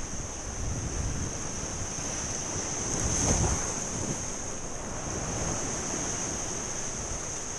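Surf breaking and washing over shoreline rocks, with wind buffeting the microphone; a wave crashes loudest about three seconds in. A steady high whine sits over the roar.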